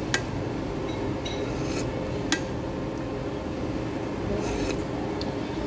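Tableware handled while eating with wooden chopsticks and a ceramic soup spoon: two sharp clinks about two seconds apart and a few soft scrapes, over a steady room hum.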